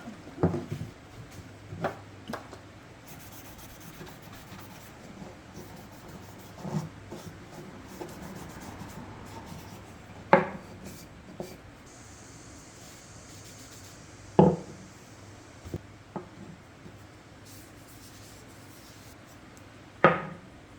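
Workshop handling noise: a few sharp knocks of objects set down on a hard surface, with faint rubbing in between.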